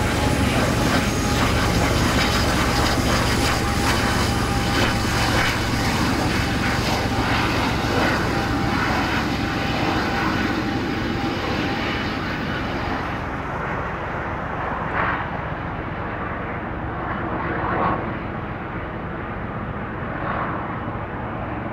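Double-stack intermodal freight train rolling past, steel wheels clicking and rumbling on the rail under a steady low drone. The sound slowly fades and loses its highs about two-thirds of the way through as the cars pull away.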